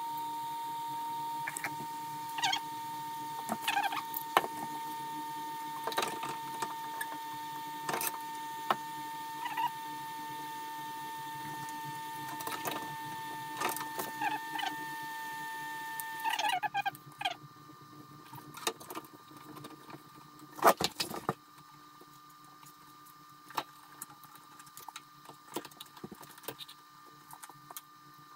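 Scattered small clicks and taps of hands handling and fitting parts inside an opened welding inverter's metal case, with one louder knock a few seconds after the middle. A steady high whine runs underneath and cuts off a little past halfway.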